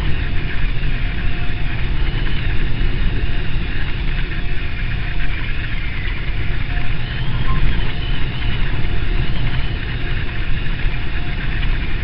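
Strong wind buffeting the microphone in a heavy, fluttering low rumble, over the wash of storm waves breaking on a rock breakwater and shingle shore.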